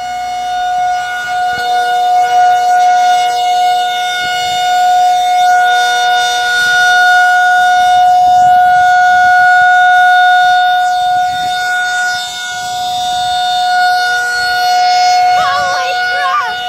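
Federal Signal 2001-SRN rotating outdoor warning siren sounding its monthly test at full speed: a loud steady tone holding one pitch, swelling and fading in loudness as the rotating head sweeps past.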